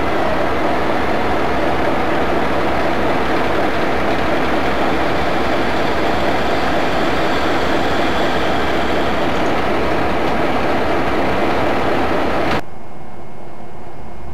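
Chicago Central & Pacific diesel locomotive running close by with a loud, steady sound while it is being fueled from a tank truck. The sound cuts off abruptly near the end, leaving a quieter outdoor background.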